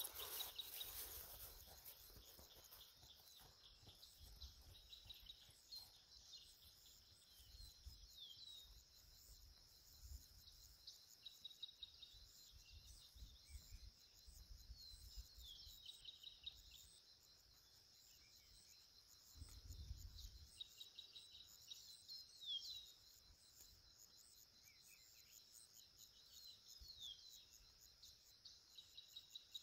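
Faint outdoor ambience: a steady high insect trill with birds giving short falling chirps again and again. Occasional low rumbles are mixed in, the strongest about twenty seconds in.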